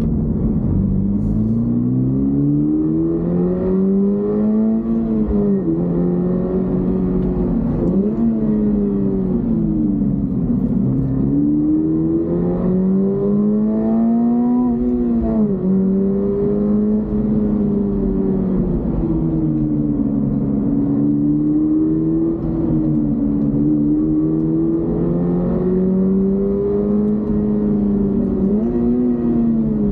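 Toyota GR86's 2.4-litre flat-four boxer engine revving under acceleration while driving. The pitch climbs and drops back several times as the car shifts gears.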